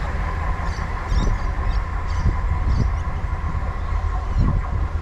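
The Ghan, a long passenger train, rolling past along the track, a steady low rumble of its carriages on the rails.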